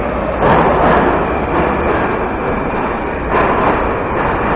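Steady noise of a metro station with an 81-717 subway train standing at the platform, doors open. Two louder surges with sharp clicks come about half a second and about three and a half seconds in.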